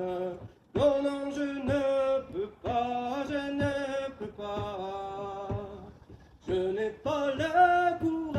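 A man singing a folk song unaccompanied, in phrases with held, wavering notes and short breaks between lines, over faint light knocks about once a second.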